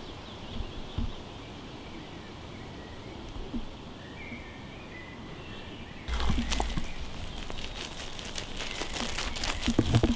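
Quiet woodland background with a few faint, short bird chirps. About six seconds in it turns abruptly louder: rustling and crunching of movement over a gravel path, with a low rumble and thumps of the camera being handled.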